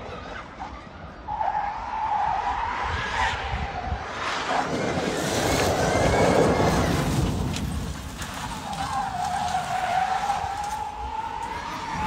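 Electric-powered rally car running: a steady high-pitched electric motor whine, broken in the middle by a loud rush of tyre noise on the surface, then the whine returns and rises slightly near the end.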